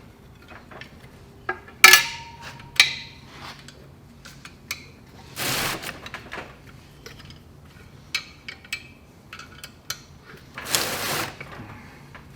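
Metal clutch parts and shims being handled: a sharp metallic clink with a short ring about two seconds in, a second clink just after, scattered small taps, and two longer scraping noises around the middle and near the end.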